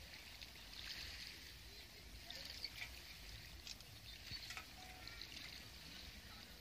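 Small waves washing faintly onto a sandy beach, swelling and fading irregularly, with a low steady rumble underneath.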